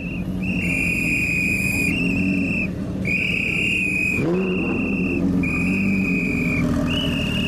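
A whistle blown in about seven blasts, some short and some longer, piercing and loud over everything else. Beneath it a Lamborghini Gallardo's V10 rumbles at low revs as the car rolls by, with one brief throttle blip about four seconds in.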